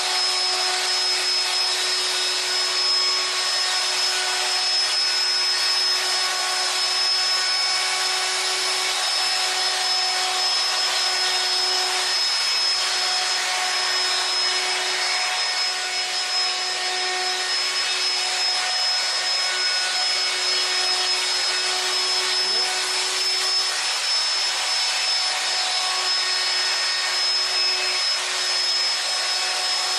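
An electric power tool motor running steadily: a constant high whine over a rushing noise, with no pauses or changes in load.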